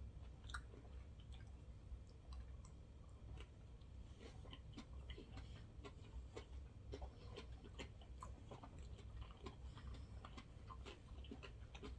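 Faint close-miked chewing of sushi: many small, irregular wet mouth clicks.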